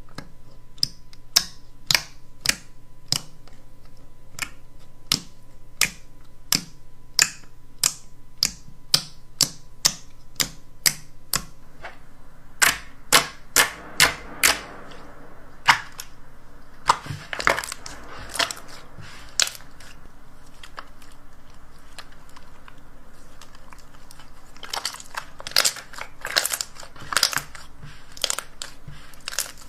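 Slime being squeezed and pressed by hand, trapped air popping out in a steady series of sharp clicks, about one or two a second, with louder runs of crackling pops around the middle and again near the end.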